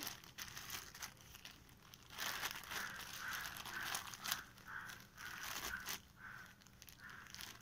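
Plastic zip-lock bag stuffed with cotton crinkling and rustling irregularly as it is handled and pricked with a pin to poke holes in it.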